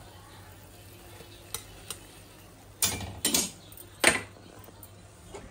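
Steel kitchen utensils clattering: a steel slotted spoon knocking against a steel kadai and plate. Two light clinks, then a quick run of loud clanks past the middle, and one sharp clank about a second later.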